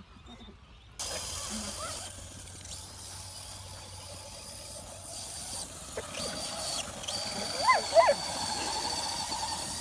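A dog chasing a remote-control car gives two short, high yelps about eight seconds in. Under them runs a steady hiss with a thin high whine, which starts abruptly about a second in.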